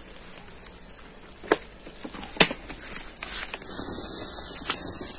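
Chicken sizzling in a grill basket over hot charcoal, with a steady high hiss and two sharp pops from the coals. The hiss grows louder about three seconds in.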